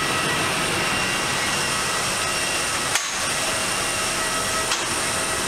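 Steady jet airliner noise: an even rushing hiss with several high whine tones held throughout. A sharp click comes about three seconds in.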